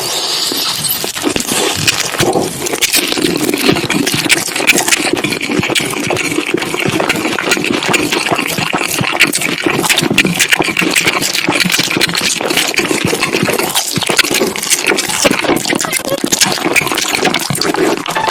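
Close-miked mukbang eating sounds: continuous wet chewing and crackly crunching of cheesy food, with dense clicks throughout.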